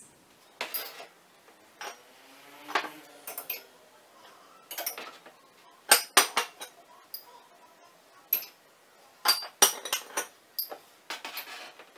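Ceramic mugs clinking and knocking against a wire under-shelf cup rack as they are hung on its hooks: a run of scattered sharp clicks, the loudest about halfway through and again near the end.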